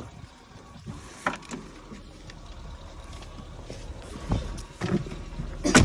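Small hatchback car's engine running at low revs, a steady low rumble that grows toward the end. A few short knocks sound over it, with a sharper knock near the end.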